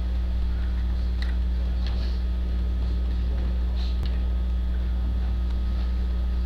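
Steady low electrical mains hum, with faint scattered clicks and room noise over it.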